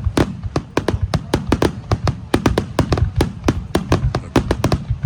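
Aerial fireworks bursting in rapid succession, several sharp bangs a second over a continuous low rumble.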